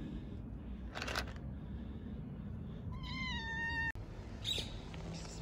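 A stray cat meows once, a high, slightly wavering meow just under a second long, about three seconds in. A short burst of noise comes about a second in, and a low steady rumble runs underneath.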